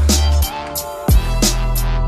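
Background music: a drum beat over a deep bass line. The bass drops out for about half a second near the middle, and a heavy kick drum brings it back.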